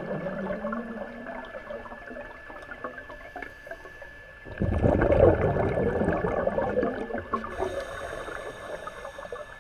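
Scuba regulator breathing heard underwater: a quieter stretch, then about halfway through a sudden loud rush of exhaled bubbles that tails off over a few seconds. A thin steady high tone runs underneath.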